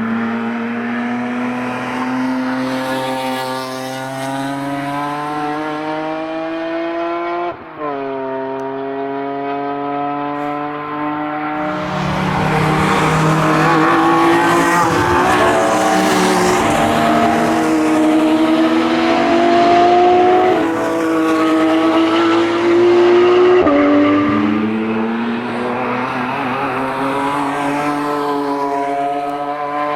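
BMW E46 M3 engines at full throttle, their pitch climbing steadily as they accelerate. The sound breaks off suddenly once, grows louder and rougher about twelve seconds in, and the pitch drops sharply near the end as at an upshift before climbing again.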